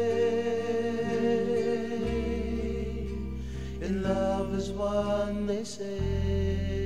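Background music: a song with sustained chords and a bass line that changes notes, and a singing voice coming in about halfway through.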